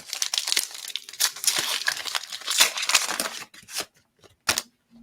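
A trading-card pack's wrapper being torn open and crinkled for about three and a half seconds, then a couple of short sharp clicks.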